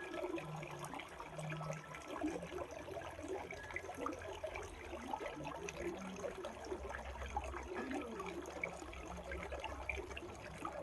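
Gurgling, trickling water: a dense, irregular patter of small bubbling splashes that goes on without a break.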